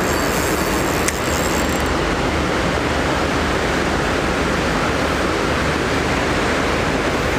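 Steady rush of river water running fast just below a dam, with a single faint click about a second in.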